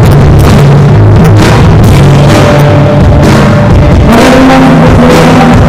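Live punk rock band playing, with the drum kit loud and close: fast, dense hits on drums and cymbals over sustained guitar and bass chords that shift about two seconds in and again near four seconds. The recording is very loud, near full scale.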